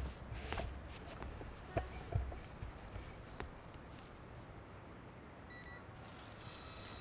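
Faint room noise with a few small clicks, then a short electronic beep about five and a half seconds in.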